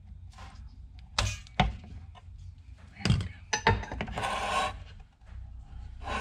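Sharp clicks and knocks from hand tools and the circuit board being handled on a workbench during desoldering: a handful within the first four seconds, then a short scraping rustle about four seconds in.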